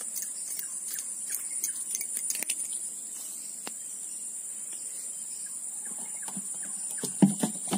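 Steady, high-pitched insect chorus, with scattered faint clicks in the first few seconds and a few dull knocks near the end.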